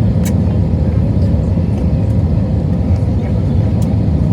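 Airliner cabin noise during landing: the steady low roar of the jet engines and rushing air heard from inside the cabin, with a couple of light clicks.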